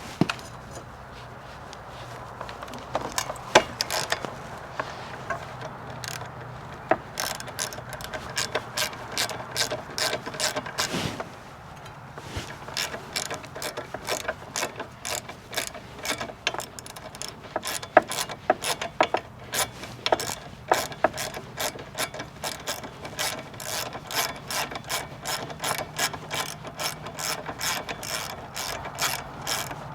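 Hand ratchet wrench clicking as a bolt is worked on a motorcycle during a tire change: scattered clicks at first, then, after a short pause about eleven seconds in, quick, even runs of clicks that continue.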